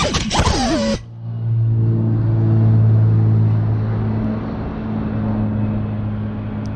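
Mini quadcopter's motors whining and rising and falling in pitch, with a few sharp knocks. About a second in this cuts abruptly to a steady low hum that slowly fades.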